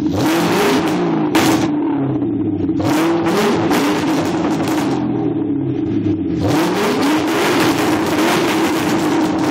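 2009 Ford Mustang GT's 4.6-litre V8 with FRPP Stinger exhaust tips and an off-road X-pipe, free-revving: several quick blips from idle, then a longer rev held near the end before dropping back to idle.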